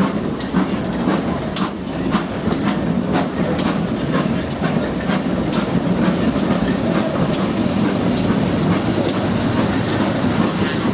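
Steam-hauled railway carriages rolling along the track: a steady rumble of wheels on rail, with sharp clicks as the wheels cross rail joints.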